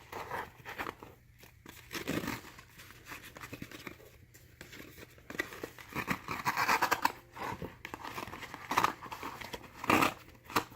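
Small gift package being handled and unwrapped by hand, its wrapping crinkling in irregular bursts, busiest about six to seven seconds in and again near the end.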